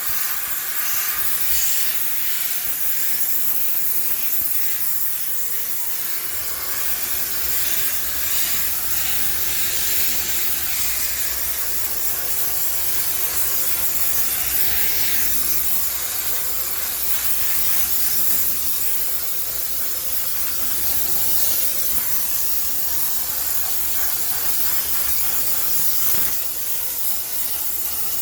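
High-pressure steam cleaner jetting steam in a steady hiss, used to sterilize a washing machine. A low hum joins about six seconds in.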